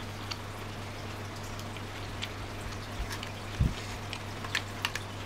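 Close chewing of crunchy strawberry Chocoballs: scattered small crisp clicks and mouth sounds over a steady low electrical hum, with a soft thump about three and a half seconds in.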